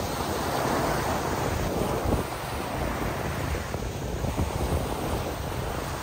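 Small surf waves breaking and washing up a sandy beach, with a louder rush of water in the first couple of seconds, and wind buffeting the microphone.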